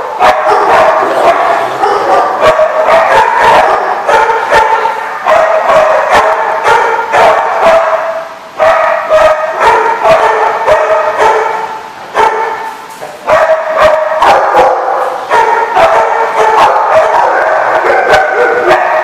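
Large dogs barking almost without pause during rough play-wrestling, with brief breaks about eight and twelve seconds in.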